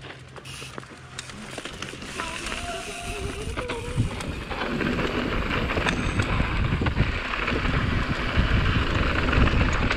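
Mountain bike rolling down a dry, gravelly dirt trail: tyres crunching over the loose surface with wind rushing over the microphone, growing steadily louder as the bike picks up speed.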